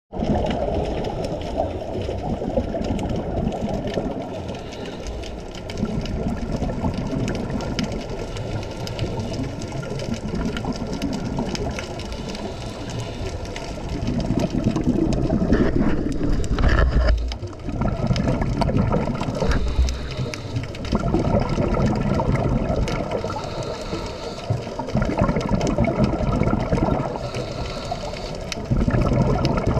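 Scuba regulator breathing heard underwater: bubbling bursts of exhaled air every few seconds, with quieter stretches of hiss between breaths.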